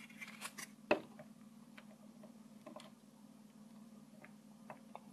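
Faint, scattered light clicks and taps of something being handled, the sharpest about a second in, over a low steady hum.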